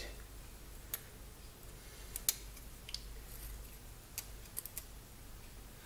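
Scattered faint clicks and ticks, about seven of them, as a memory chip's legs are pushed into place on a circuit board by hand, over a faint low hum.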